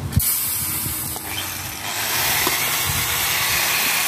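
A loud, steady hiss of rushing air or gas that starts abruptly and fills out about two seconds in.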